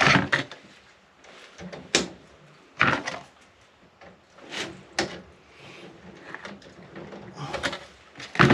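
Metal hand tools (pliers and wire strippers) being picked up and set down on a plywood board: several sharp knocks and clatters at irregular intervals, with quieter handling noise between.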